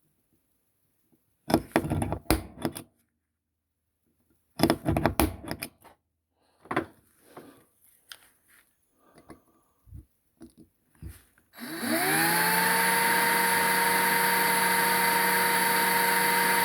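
Clattering knocks of tools and the die-cast model being handled. About twelve seconds in, a cordless drill starts, its whine rising as it spins up and then running steadily, with a 2 mm bit that is not the sharpest.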